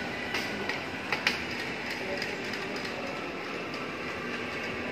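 Metal wire shopping trolley being pushed and rolling steadily over a hard floor, with a few sharp clicks in the first second and a half.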